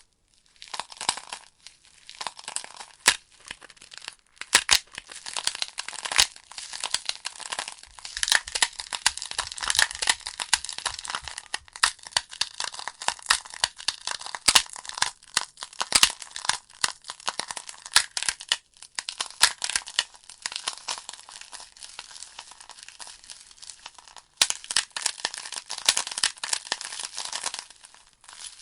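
Wood fire burning in a fireplace: logs crackling with many irregular sharp pops and snaps over a steady hiss, easing off briefly about a second in and again near the end.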